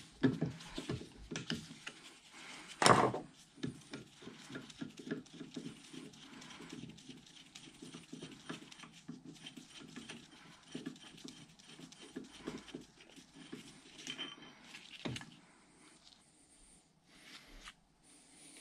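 Steel wrench and pliers clicking and scraping on a Bridgeport mill's micrometer nut and jam nut as they are worked off the quill stop micro screw. It is a run of small metallic clicks with louder knocks about three seconds in and again about fifteen seconds in. The two nuts are stuck together, which makes them hard to turn off.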